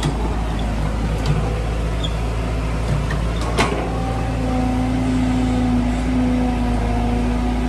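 Caterpillar hydraulic excavator running steadily as it drives its bucket into the ground; about four seconds in a steady whine joins under the digging load. A single sharp click a little before that.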